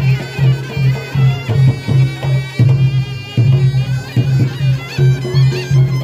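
Live reog gamelan music: a slompret, a reedy shawm, plays a wavering melody over a steady low drum-and-gong beat of about two strokes a second.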